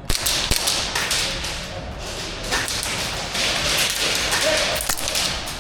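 Airsoft guns firing in scattered, irregular sharp snaps and taps, over a rushing noise of movement.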